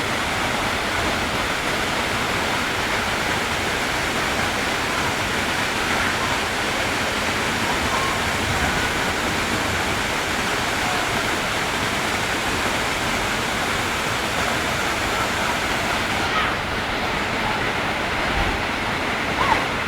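Waterfall, water falling and rushing steadily; its hiss becomes duller about three-quarters of the way through.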